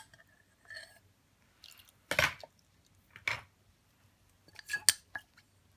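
Liquid egg white poured from a glass beaker into soap batter in a plastic jug: a few short splashes and swishes, the loudest about two seconds in, then light clinks of glass against the jug near the end.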